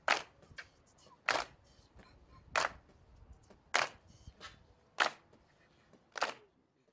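A sharp click repeated at an even pace, six times, about one every 1.2 seconds, each with a short tail.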